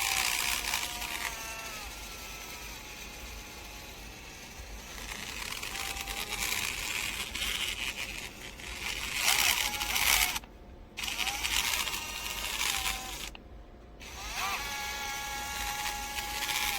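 Bosch GSR12V-300 12V brushless screwdriver motor run in short trigger bursts: a steady whine that winds down about a second in, shorter spins in the middle, and another steady run near the end, with handling noise between.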